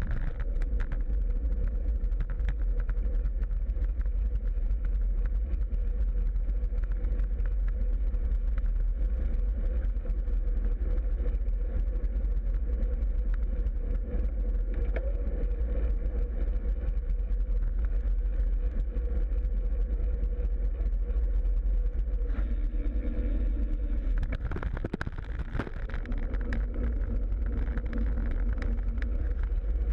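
Wind buffeting the microphone of a bicycle-mounted camera, over the rumble of the bike's tyres on the road and a steady hum. A car passes close by near the end.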